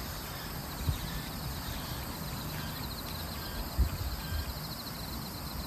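Outdoor ambience: a steady low rumble with a faint, rapid, high insect trill over it for the first few seconds, and two soft thumps, about a second in and near four seconds.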